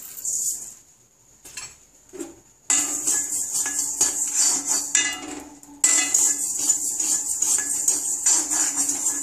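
Coriander seeds being dry-roasted in an oil-free kadai: a steel spoon stirs and scrapes them around the bare pan, a rapid rattling, scraping clatter that starts about three seconds in, dips briefly near the middle, then goes on steadily.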